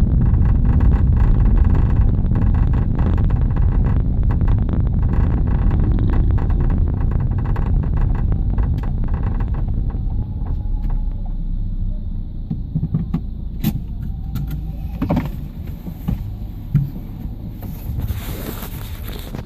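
Ford Fiesta running with a loud low rumble and a rapid rattling clicking over it: the abnormal noise from the back of the car, cause unknown to the owner. The rumble fades gradually over the second half, with a few separate knocks near the end.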